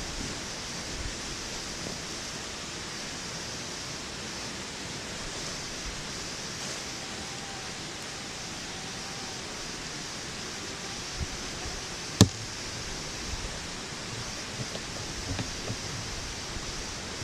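Steady outdoor hiss, with a few faint soft knocks and one sharp knock about twelve seconds in.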